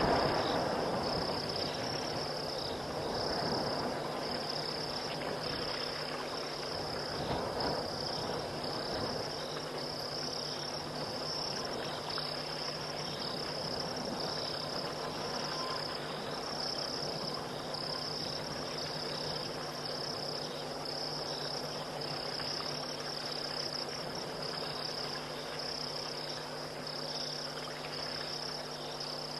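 Night insect chorus of crickets chirping in a high, steady pulsing rhythm. Underneath, a low rushing noise dies down over the first several seconds.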